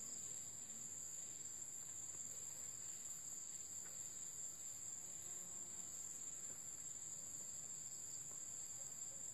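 Steady, high-pitched insect chorus, crickets shrilling without a break.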